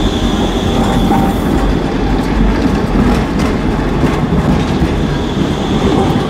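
Low-floor tram passing close by on curved street track: a steady, loud rumble of steel wheels on rails, with a thin high wheel squeal held above it.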